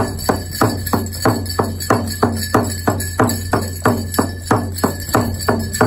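A drum beaten in a steady, even beat of about three strokes a second, keeping time for a hoop dance.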